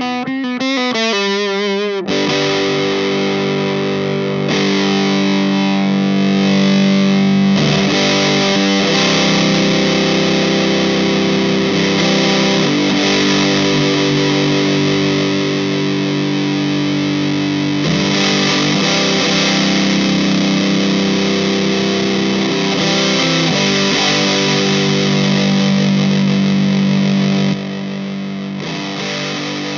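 Electric guitar played through a Big Muff Ram's Head clone fuzz pedal: thick, heavily distorted notes and chords held long and changing every few seconds, with a wavering, wobbling passage in the first couple of seconds and a drop in level near the end.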